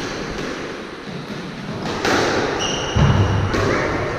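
Squash rally: the ball cracks off rackets and smacks into the court walls several times, with court shoes squeaking on the wooden floor.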